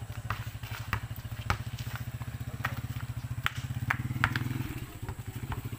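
A small engine running steadily in the background, its pitch rising briefly about four seconds in. Over it, sharp irregular knocks of a basketball bouncing on a concrete court.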